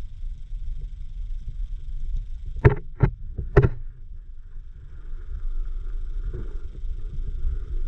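Muffled low rumble of river water moving around an underwater camera, with three sharp knocks close together a little before the middle.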